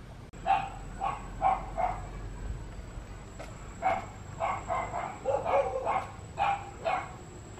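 A dog barking in short, separate barks: four about half a second apart, then after a pause of about two seconds a quicker run of barks.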